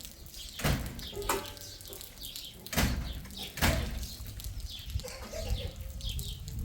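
Small birds chirping over and over, with four loud thumps or bumps in the first four seconds.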